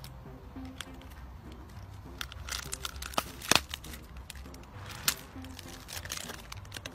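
Plastic snack wrapper crinkling and crackling as a rhesus macaque bites and pulls at it, in spells about two to four seconds in and again about five seconds in, with one sharp crack midway.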